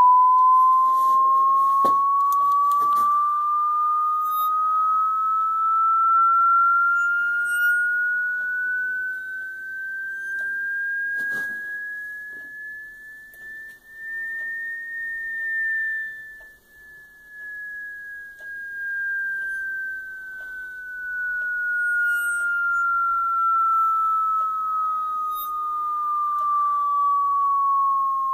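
Sentek Dynamics miniature vibration shaker driven by a sine sweep, giving off a single pure tone. The tone glides slowly upward for about fifteen seconds and then glides back down. A few faint knocks come near the start and once in the middle.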